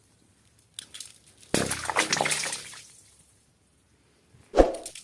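Stones dropped into an open borewell splash into the water inside it, the hollow splash dying away inside the casing. It happens once about a second and a half in, with a sharper short knock near the end.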